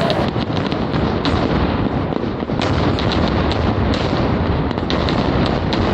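Dense pyrotechnic barrage: a loud, unbroken run of firework and firecracker bangs and crackling, the reports coming too fast to count.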